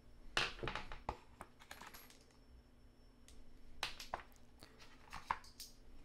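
Unboxing handling sounds: scattered light clicks, taps and rustles as a mini fluid tripod head and its pan handle are taken out of a foam-lined cardboard box and set down on a wooden floor. The sounds come in two brief clusters, about half a second in and again from about four seconds in.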